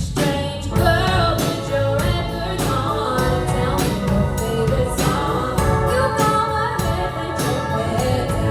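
A band playing a pop song, with a lead voice singing over a steady drum beat and bass.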